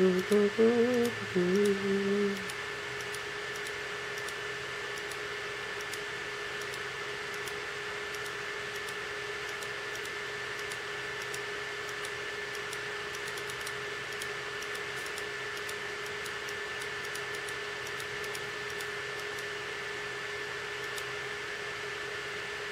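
A brief wordless hum from a person's voice for the first two seconds or so, then a steady electrical hum with two constant tones, one low and one high, under faint irregular clicking, typical of a mouse scrolling a page.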